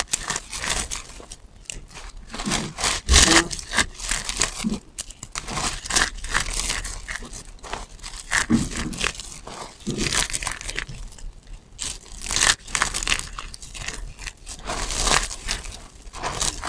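Hands crushing and rubbing a heap of dry soap shavings: a crisp crackling crunch that comes in uneven clusters every second or two.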